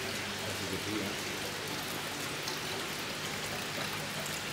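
Steady rain-like hiss of water circulating and splashing in large saltwater reef aquariums, with a faint low hum underneath.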